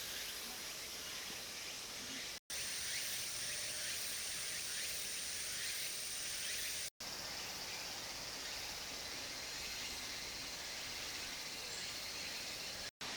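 Steady outdoor ambience with a high, continuous insect chirring. It drops out to silence for an instant three times where the footage is cut.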